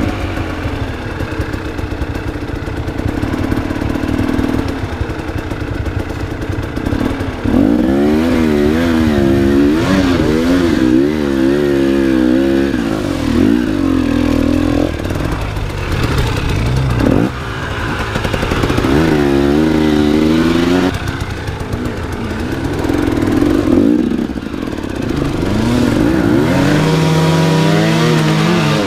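Enduro motorcycle engine being ridden hard over rough terrain, the revs rising and falling rapidly again and again as the throttle is worked, with steadier stretches in between.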